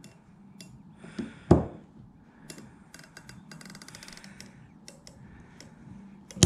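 Circlip pliers working a circlip off the back of an Emco Unimat SL three-jaw scroll chuck: small metallic clicks and taps, a sharp click about one and a half seconds in, a quick rattle of ticks around four seconds, and another sharp click near the end.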